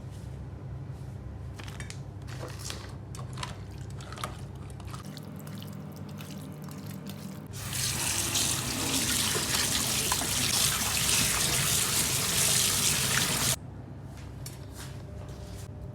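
Kitchen sink tap: drips and small splashes at first, then water running hard into the sink for about six seconds before it is shut off sharply, a couple of seconds before the end.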